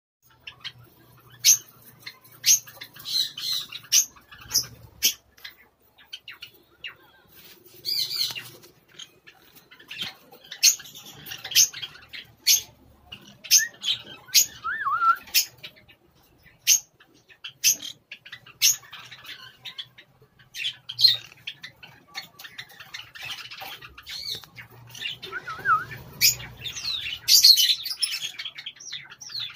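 Pineapple green-cheeked conures calling in a cage: short, sharp chirps and squawks about once a second, with bouts of chattering and a couple of wavering warbles between them.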